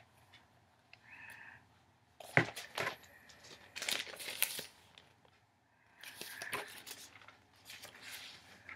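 Glossy magazine pages rustling and crinkling as they are handled and turned, in several irregular bursts of crackling with sharp snaps.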